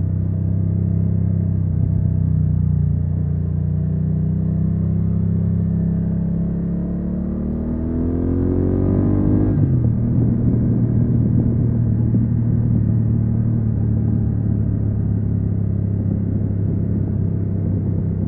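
BMW F900R's parallel-twin engine under way: its revs climb steadily for a few seconds, drop abruptly about halfway through as it shifts up a gear, then hold steady at cruising speed.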